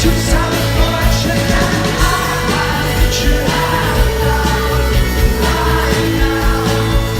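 Rock band playing live, with a sung lead vocal over the full band, loud and steady.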